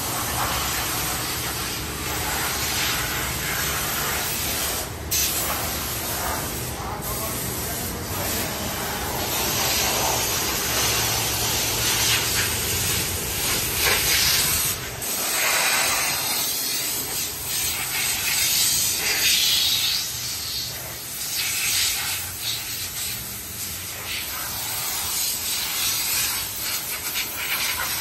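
Compressed air hissing from a hand-held blow gun on a coiled air hose, blowing water off a washed car, swelling and easing in uneven bursts.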